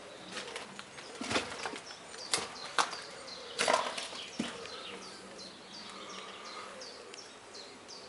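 Footsteps and scuffs going down into a shelter doorway: about five sharp, uneven steps in the first half. Short bird chirps repeat faintly in the second half.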